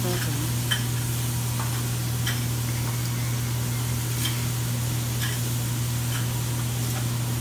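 Diced chicken sizzling on a hibachi flat-top griddle while a metal spatula scrapes and taps against the steel about once a second, over a steady low hum.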